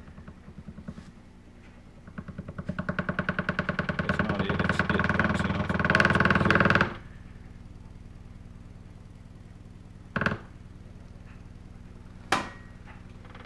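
Adire Brahma 15-inch prototype subwoofer driven with a 20 Hz tone in free air at about 500 W. The cone at long excursion gives a fast rhythmic chatter that builds louder over several seconds and then cuts off suddenly. After that a quieter steady hum remains, broken by two short knocks near the end.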